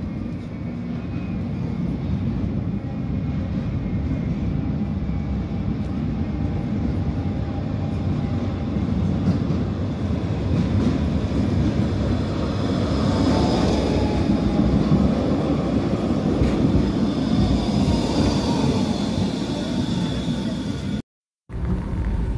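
Pesa Twist low-floor tram running along a street track and passing close by: a rumble of wheels on rail that swells as it comes near, with a high electric whine over it that fades and falls slightly in pitch as it moves away.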